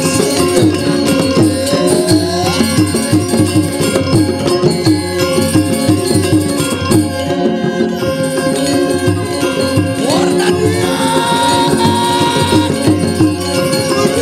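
Traditional Indonesian dance accompaniment: a dense ensemble of held and struck notes in a steady, busy rhythm, with a rising gliding note over it twice.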